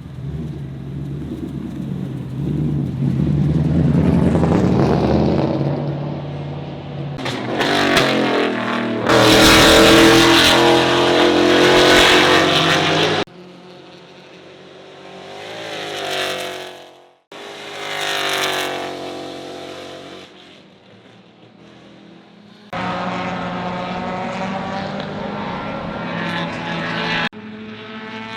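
Race car engines revving hard on track, pitch climbing and falling as cars accelerate past, heard in several short passes that cut abruptly from one to the next.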